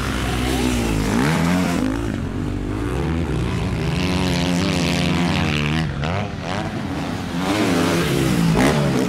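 Dirt-bike engine revving sounds that rise and fall in pitch again and again, going along with toy dirt bike racing.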